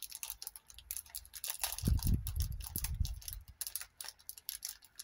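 Light clicking and tapping of small objects being handled on a work table, with a low rumbling thump about two seconds in that lasts about a second.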